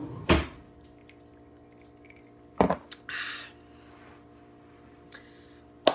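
Two loud knocks about two seconds apart, then a short hiss and a couple of clicks near the end, over a steady low hum: a glass mug of iced coffee being handled and set down on a table.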